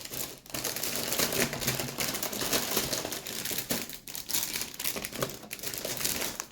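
Plastic bags holding model-kit runners crinkling and rustling as they are handled, with many small clicks of plastic.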